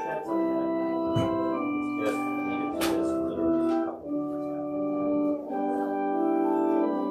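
Slow organ music: sustained chords that change every second or so. Two sharp clicks stand out, at about one and three seconds in.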